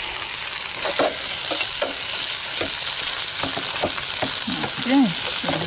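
Lamb chop sizzling in a hot frying pan, with scattered clicks and scrapes of utensils against the pans and a brief wavering tone about five seconds in.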